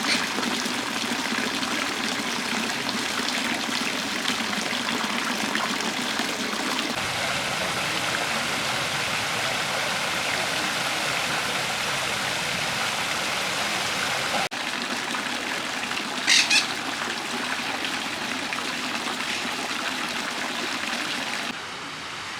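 Running water splashing steadily, with two short high-pitched chirps about sixteen seconds in.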